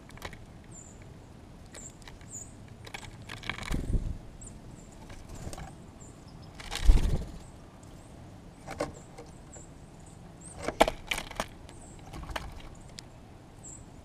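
Woodpeckers pecking and knocking at the seed tray of a window feeder close to the microphone: irregular knocks and thumps, the loudest about seven seconds in and a quick run of them near eleven seconds.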